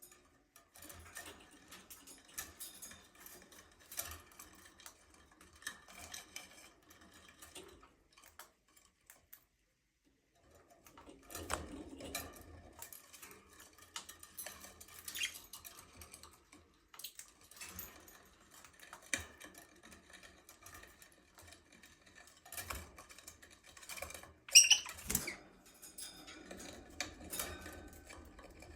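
Budgerigars in an aviary: scattered soft chirps over a busy patter of small clicks and scratching, with one louder, sharper call near the end. The sound drops out for two or three seconds about a third of the way through.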